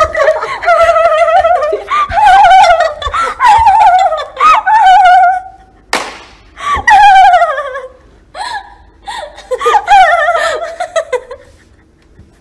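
A young woman laughing hard in repeated high-pitched fits.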